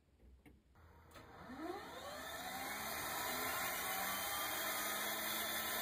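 Air Tractor AT-502's turboprop engine starting: after a few faint clicks the start begins about a second in, with a whine that rises in pitch over the next two seconds and then settles into a steady whine and rush as the engine comes up to speed.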